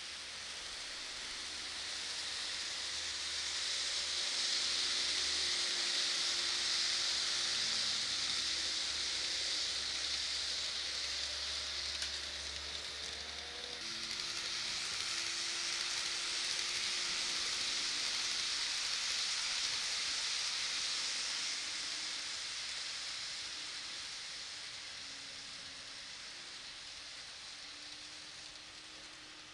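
N gauge model of a 115 series electric train running along the track: a steady hissing wheel-on-rail noise with faint humming tones under it. The hiss swells as the train comes by, breaks off briefly about halfway through and fades out near the end.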